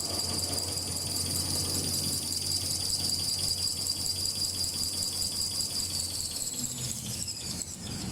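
Kitchen towel and toilet paper roll making machine running with a steady high whine over a low hum and a regular fast ticking. About six seconds in, the whine falls in pitch and the hum stops as the machine slows down.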